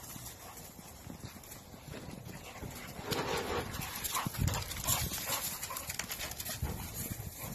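American Bully dogs at play: a patter and scuffle of paws on the ground with short dog noises. It gets busier and louder about three seconds in.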